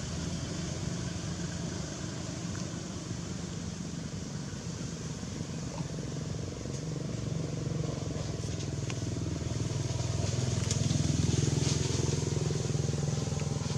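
A motor vehicle engine running, a steady low hum that grows louder from about halfway through and is loudest near the end, with a few faint high clicks over it.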